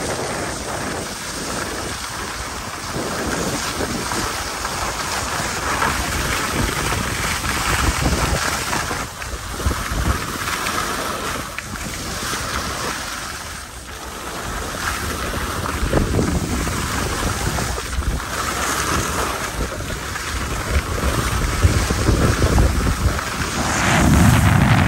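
Wind buffeting the microphone while moving downhill on a ski slope, with the hiss of sliding over groomed snow. The noise swells and dips, and the buffeting grows heavier near the end.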